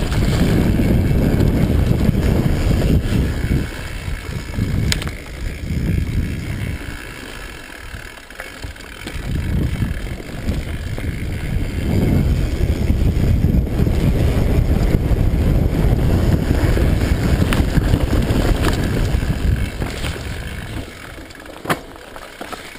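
Mountain bike descending a dirt singletrack: a low rush of wind on the microphone mixed with tyre noise on the dirt, with a few sharp clicks and rattles from the bike. The rush eases for a few seconds about a third of the way in, swells again, and fades near the end.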